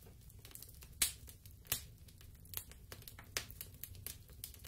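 Crackling sound effect: irregular sharp pops and crackles over a low rumble, the loudest about a second in.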